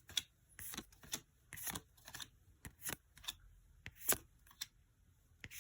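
Yu-Gi-Oh trading cards being handled and flipped through by hand: a run of short, irregular clicks and swishes as one card slides off the next.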